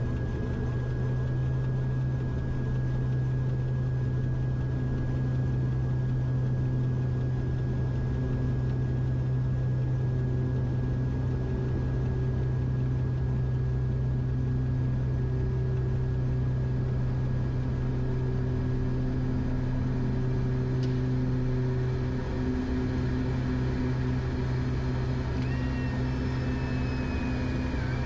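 Twin Pratt & Whitney PT6A turboprops of a Beechcraft King Air at takeoff power, heard from the cockpit: a steady deep propeller drone with a steady high turbine whine. About 25 seconds in, a new higher whine joins and dips in pitch as the landing gear is raised.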